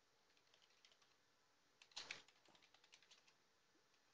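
Computer keyboard typing: a run of quiet key clicks, with a louder cluster of keystrokes about two seconds in, followed by more scattered clicks.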